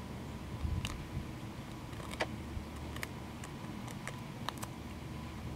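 Cottontail rabbit biting and chewing a crunchy seed-and-nut bar held in a hand: irregular sharp crunching clicks over a low steady rumble.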